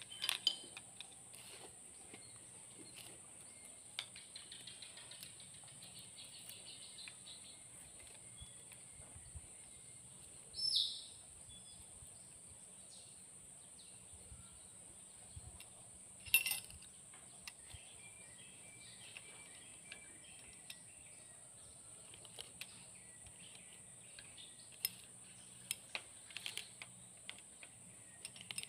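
Faint, scattered metal clicks of a wrench and screwdriver on the rocker-arm adjusting screws of a six-cylinder Komatsu diesel head, as the valve clearance is set. Birds chirp in the background, one louder chirp coming about a third of the way in, over a steady high-pitched hiss.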